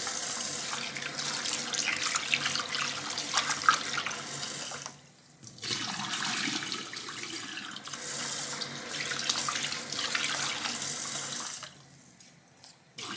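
Kitchen tap running into a stainless steel bowl as rice is rinsed, with the cloudy rinse water poured off into the sink. The water breaks off briefly about five seconds in and stops about twelve seconds in.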